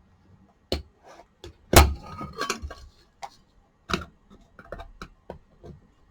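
Plastic parts of an old rice cooker being forcibly broken off, a series of sharp cracks and knocks at irregular intervals, the loudest about two seconds in.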